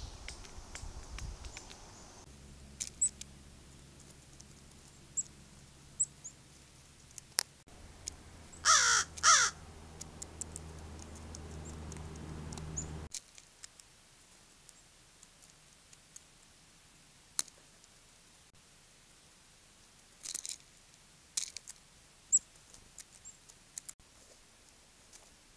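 Crows cawing: two loud, falling caws about nine seconds in, and a few more calls around twenty seconds. Scattered sharp clicks and a faint low hum come and go between them.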